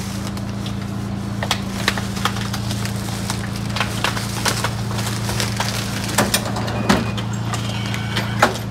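Plastic carrier bag crinkling and small items clicking and knocking as purchases are handled and bagged, in irregular sharp crackles over a steady low hum.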